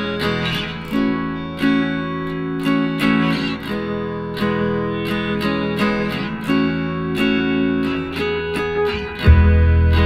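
Background music: guitar strummed in a steady rhythm, with a deep bass coming in near the end.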